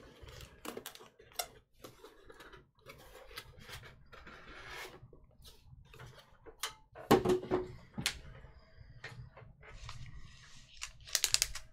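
Scattered light clicks and taps, with a louder cluster about seven seconds in, then a quick run of crinkling near the end as foil trading-card packs are picked up and handled.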